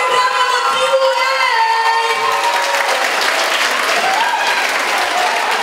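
Audience cheering and applauding. High held screams and whoops fade about two seconds in, leaving steady clapping.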